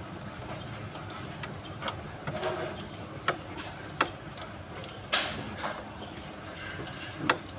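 Metal hand tools and engine parts clinking and tapping now and then, about five sharp knocks a second or so apart, one ringing briefly about five seconds in.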